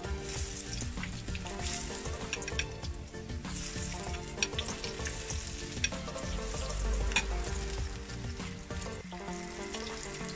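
Spinach pakoras (gram-flour batter fritters) deep-frying in hot oil: a steady sizzle with scattered sharp pops and crackles.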